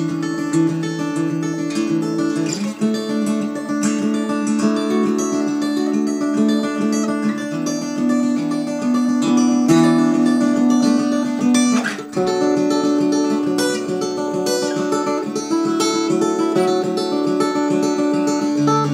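Solo steel-string acoustic guitar in open C tuning, finger-picked, with ringing melody notes over sustained low strings. The playing breaks off briefly about twelve seconds in and then resumes.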